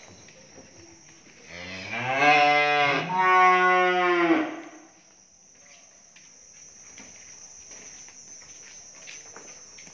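One long cattle moo starting about a second and a half in, rising in pitch and then held for about three seconds before it stops.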